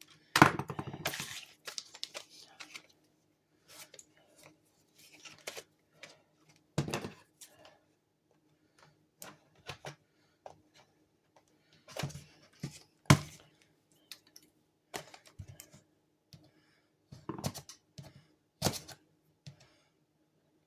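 Irregular clicks, clacks and knocks from a metal heavy-duty staple gun being handled while its staple loader is worked, with a sharp clack just after the start and another about 13 seconds in. A faint steady hum runs underneath.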